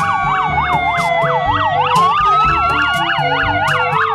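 Several police car sirens sounding at once: a rapid yelp sweeping up and down about four times a second, over slower wailing tones that fall, then rise about two seconds in, then fall again.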